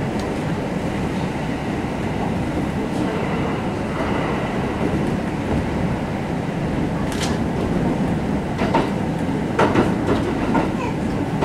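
Kintetsu 1259 series electric train car (Mo 1268) running on the line: a steady rumble of wheels on rail, with sharp wheel clicks over rail joints starting about seven seconds in and coming closer together near the end.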